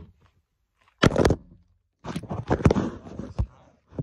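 Handling noise: rustling and a few knocks close to the microphone as the phone recording is picked up and moved.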